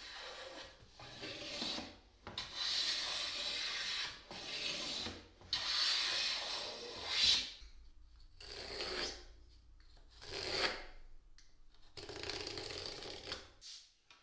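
Hand plane shaving the edge of a white oak board: a series of rasping strokes, the first ones long, a second or two each, the later ones shorter and further apart.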